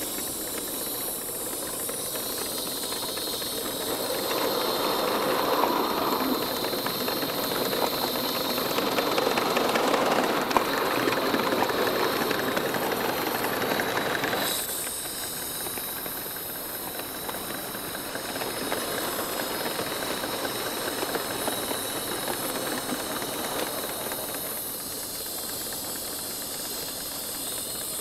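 Coal-fired 7¼-inch gauge live-steam Wren locomotive running, with steam hissing over rapid exhaust beats. It is louder through the first half and drops abruptly to a lower level about halfway through.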